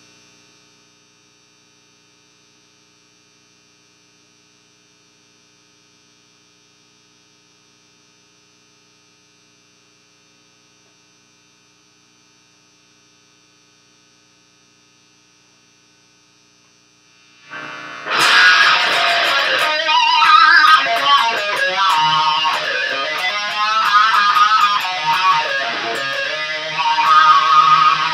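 Steady electrical hum from an electric guitar rig idling, then a bit over halfway through a Fender Stratocaster comes in loud through its amplifier, playing lead lines with bent and wavering notes.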